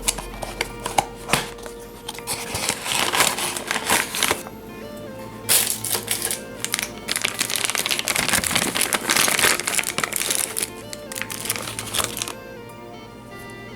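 Background music with packaging crinkling and crackling in bursts as a model is unwrapped. The crinkling stops about three-quarters of the way through.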